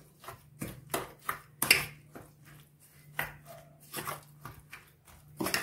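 A spoon stirring thick semolina and gram-flour batter with chopped vegetables in a stainless-steel bowl: irregular clicks and scrapes of the spoon against the bowl, with soft squelches of the batter.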